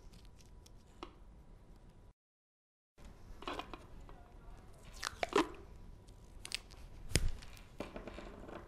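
Hands handling thin wires and a plastic battery clip: faint rustling with scattered sharp clicks, the sharpest about seven seconds in. The sound drops out completely for about a second, around two seconds in.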